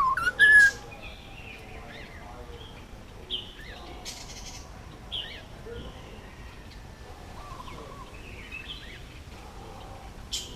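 Male Indian ringneck parakeet calling: loud, sharp squawks in the first second, then scattered quieter chirps and short calls.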